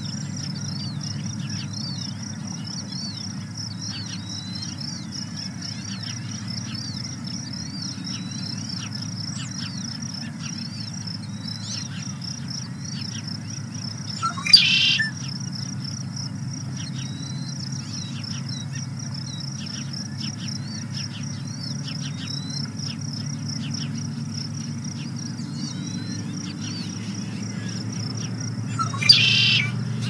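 Unidentified birds calling: a loud, brief call repeated about every fifteen seconds, twice here, over a steady high pulsing trill and many short, high, down-slurred chirps, with a low steady rumble underneath.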